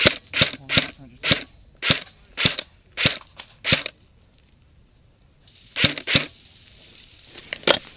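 Airsoft gun firing single shots in quick succession, about two a second: eight sharp cracks, a pause of nearly two seconds, then three more.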